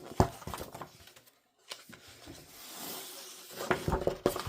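A large paper poster being handled: rustling and sliding paper with a few sharp taps and clicks near the start and again near the end.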